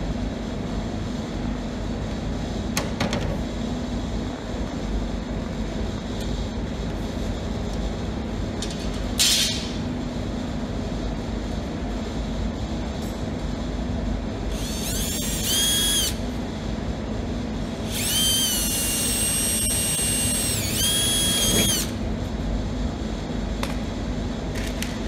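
Cordless drill run twice, a short run of about a second and a half and then a longer one of about four seconds, its whine rising in pitch as it spins up each time. A short sharp clatter comes about nine seconds in, over a steady low workshop hum.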